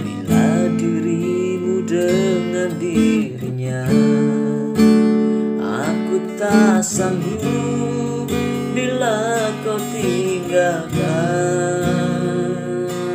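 Background pop song with a strummed acoustic guitar.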